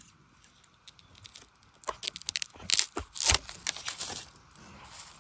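Dry, burnt bamboo twigs and leaf litter crackling and rustling under handling, in a quick cluster of sharp snaps from about two to four seconds in, the loudest near the middle.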